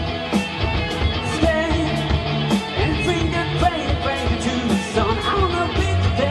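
Live rock band playing: electric guitars, bass and a drum kit with cymbal hits about twice a second, under a lead singer's voice.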